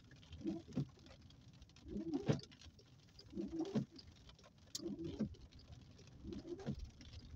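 Car windscreen wipers sweeping over rain-wet glass about every one and a half seconds, each pass a short low-pitched squeal that ends in a knock.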